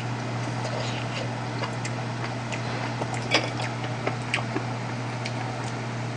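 A few light clicks of chopsticks against a ceramic bowl as food is picked up, the clearest about three and a half seconds in, over a steady low hum.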